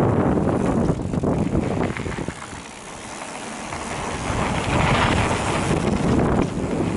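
Mountain bike riding down a dirt and rock trail: tyres rolling and the bike rattling over rocks, with wind buffeting the microphone. The noise drops for a moment about two and a half seconds in, then builds again.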